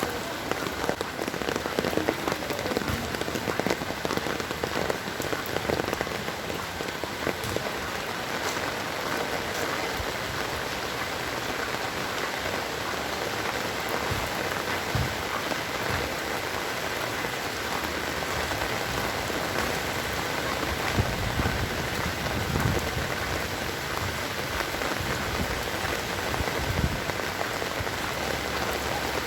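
Heavy rain falling steadily, a constant hiss of water striking the ground and surfaces, with a few scattered dull knocks.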